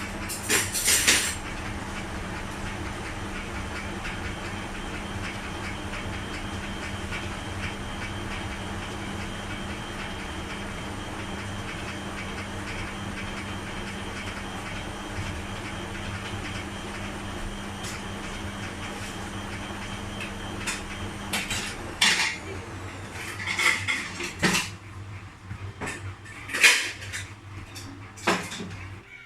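Beko 7 kg washing machine running with a steady motor hum that stops about 22 seconds in. Clinks and knocks follow, with another loud clatter near the start.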